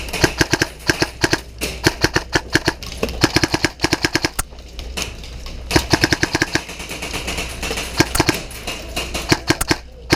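Airsoft guns firing rapid strings of sharp snapping shots, with a short pause a little under halfway through.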